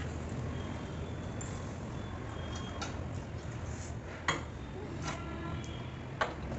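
Tableware clinking during a meal: a few light clinks, with two sharper ones about four and six seconds in, over a low steady hum.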